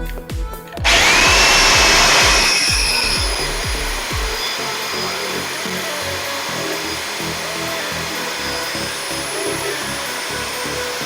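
Electric drill starting about a second in with a brief rising whine, then boring into a plywood door with a three-quarter-inch bit. It is loudest for the first couple of seconds, then runs steadily. Background music with a steady beat plays throughout.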